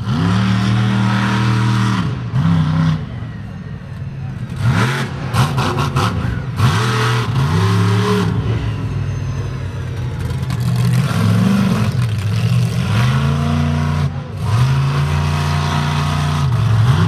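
Bigfoot 2 monster truck's engine revving hard, its pitch climbing and dropping again and again as the throttle is worked.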